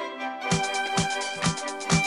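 Background music: violin melody over a steady beat, with a low kick drum about twice a second.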